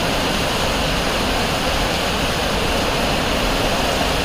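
Heavy rain and running floodwater: a loud, steady rushing hiss with no breaks.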